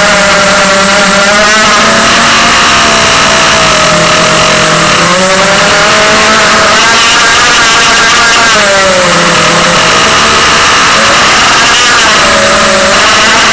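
Electric motors and propellers of a 250 mm FPV racing quadcopter, a loud whine whose pitch keeps rising and falling with the throttle, over a steady rushing hiss.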